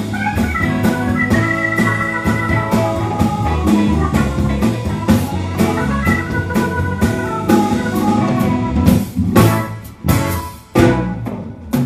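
Live blues band playing: electric guitar, bass, drums and stage keyboard, with long held keyboard chords over a steady drum beat. From about nine seconds in, the band plays a few sharp accented hits with short gaps between them.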